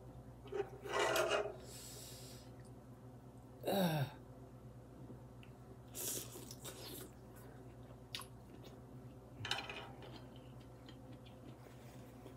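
A person eating noodle soup with chopsticks: several short slurps and chewing sounds at irregular intervals. About four seconds in comes a brief hum that falls in pitch.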